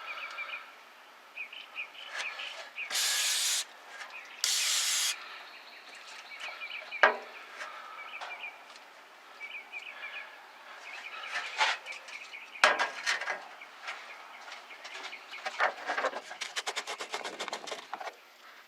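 Aerosol brake cleaner sprayed in two short hissing bursts, about three and four and a half seconds in, to wash spilled brake fluid off before it eats the paint. Scattered knocks and clicks follow, with a quick run of clicks near the end.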